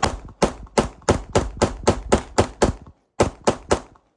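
Glock pistol fired rapidly, about ten shots at three to four a second, then a short pause and three more shots. It cycles without a jam, meant to show that the feeding trouble lies in the magazine, not the pistol.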